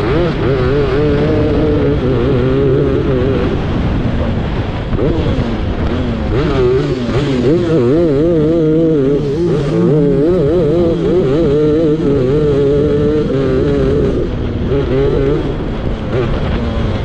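A racing grass kart's engine heard onboard at speed, its note wavering and rising and falling with the throttle as the kart slows and speeds up.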